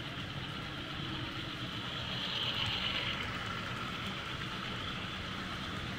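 HO scale model freight train running past on the track: a steady rolling noise of small metal wheels on rail, swelling a little about two to three seconds in.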